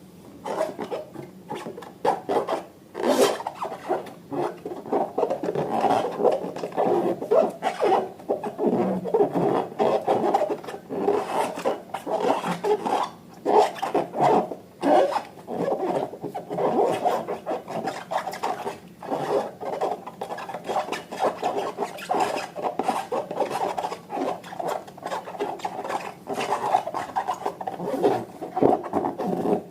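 Slime and rubber balloons being handled: a dense, continuous run of short rubbing and squishing sounds, with an occasional louder one.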